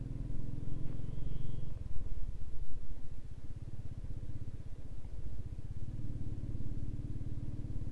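Motorcycle engine running under the rider on a rough gravel road. Its low note is steady at first, pulses more coarsely for a few seconds in the middle, then settles again near the end.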